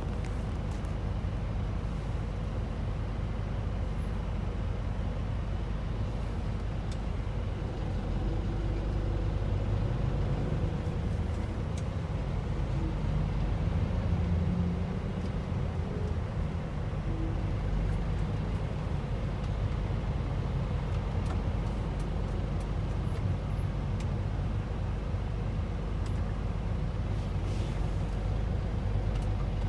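Engine and road noise heard inside a school bus's cabin as it crawls in stop-and-go traffic: a steady low rumble, with the engine note rising and falling briefly around the middle.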